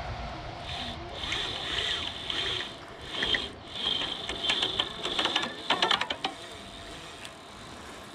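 Fly reel's ratchet drag clicking in several spurts as line moves through it while a hooked salmon is played; the clicks come fastest and loudest about five to six seconds in, then stop.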